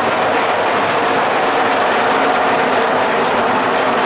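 NASCAR Craftsman Truck Series trucks' V8 engines running at full throttle as a pack races around the short oval: a loud, steady drone.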